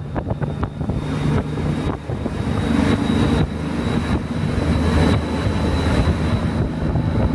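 Touring motorcycle's engine and road noise echoing inside a road tunnel, growing louder through the middle as the bike rides through. A thin steady high whine runs under it.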